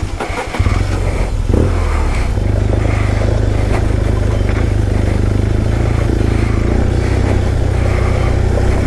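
Adventure motorcycle's engine running under load at low speed up a loose, rocky gravel track, a steady low rumble that comes in about half a second in.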